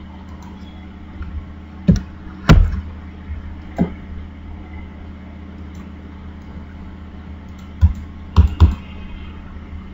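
About six sharp clicks and taps, singly and in pairs, the loudest about two and a half seconds in, over a steady low hum.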